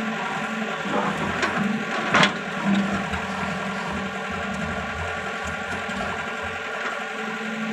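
Hyundai 140 crawler excavator's diesel engine running steadily, with a single sharp knock about two seconds in.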